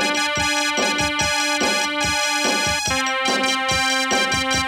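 Background music: sustained chords over a steady beat, the chord changing about three seconds in.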